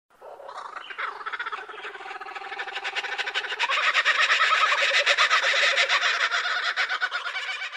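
A dense chorus of many overlapping animal calls, growing louder about three seconds in and cutting off suddenly at the end.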